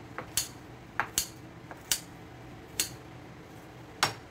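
Kitchen scissors snipping a plate of boiled taro leaves: six sharp clicks of the blades closing, at uneven intervals about a second apart.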